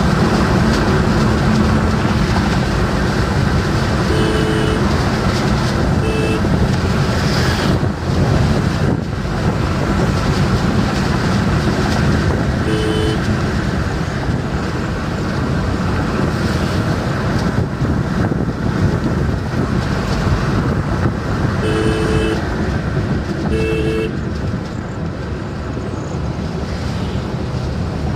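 Steady tyre and wind noise inside a car cruising at high speed, with five short car-horn toots, two of them close together near the end.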